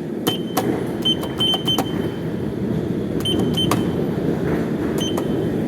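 Passenger lift running with a steady rumble that slowly grows louder, overlaid by a series of sharp clicks with short high beeps, like lift call buttons being pressed, in clusters of two to four.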